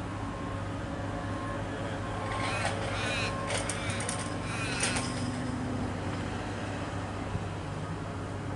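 Siemens Nexas electric suburban train approaching on the straight at a distance, a steady low hum and rumble. A few short calls, likely a bird, sound around the middle.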